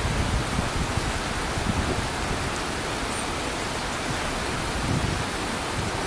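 Steady rushing of flowing river water, with uneven low rumbling underneath.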